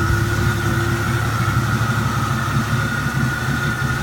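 HTAG80 tractor's engine idling steadily, with a steady high-pitched whine running alongside it.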